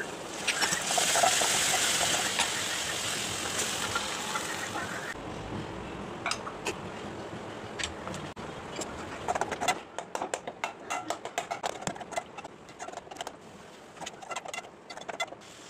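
Food sizzling in hot oil in an aluminium pan. The sizzle starts loud just as ingredients go in and slowly dies down. In the second half a spatula scrapes and clicks against the pan as the goat blood fry is stirred.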